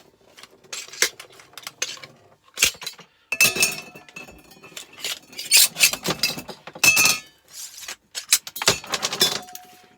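Metal and glass lamp parts clinking and knocking together as the lamp is taken apart by hand: a run of sharp clinks, a few of them ringing briefly.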